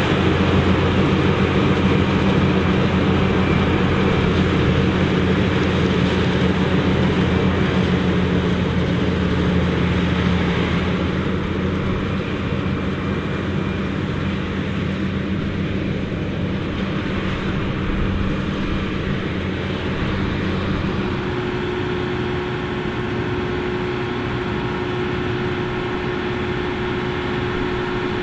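John Deere 9500i self-propelled forage harvester running steadily with a low drone while chopping corn. About 21 seconds in, this gives way to a different, slightly quieter steady engine sound from a tractor.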